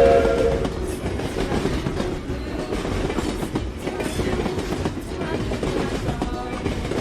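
Train running along the track, a steady rumble with clattering wheels. The tail of a chord-like train whistle fades out about half a second in.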